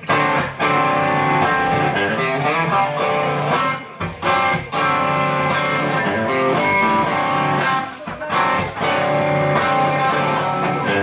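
Electric guitar played live, chords and sustained notes ringing, with two short breaks between phrases.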